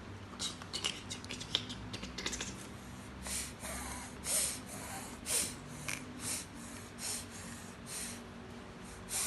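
A girl sneezing over and over: about eight short, hissy sneezes roughly a second apart, starting about three seconds in. A few faint clicks come before them.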